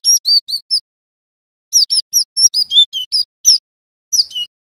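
Cinereous tit (glatik batu) singing: quick runs of clear, high whistled notes, each slurring downward, in three bursts separated by short pauses.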